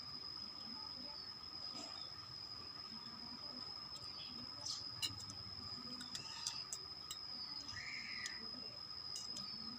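Faint, scattered clicks and smacks of someone eating, over a steady high-pitched whine.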